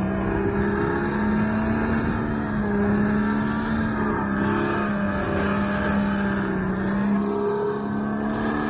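Go-kart engine running at speed around the track, a steady engine note that rises and dips a little as the throttle is worked through the corners.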